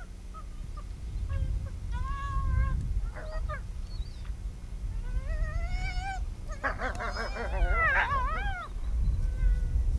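Several wolves whining and yelping in high, wavering calls, breaking into a dense overlapping burst about seven seconds in. A low rumble runs underneath.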